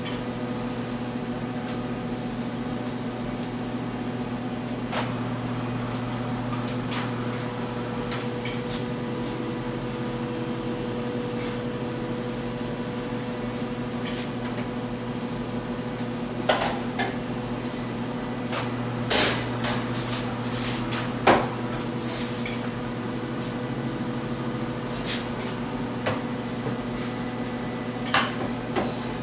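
Steady electrical hum, with a scattering of metal clanks and knocks from the sheet-metal storage bins for glaze powders being handled and tipped open; the loudest knocks come about two-thirds of the way through.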